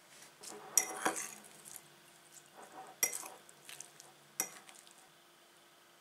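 A ceramic plate being picked up and handled on a table: rubbing noise with a few sharp clinks and knocks, the loudest about a second in and others about three and four and a half seconds in.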